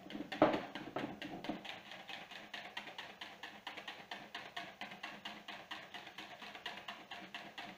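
Wire whisk beating egg yolks, sugar and a little hot milk in a bowl, the wires clicking against the bowl in a rapid, even rhythm.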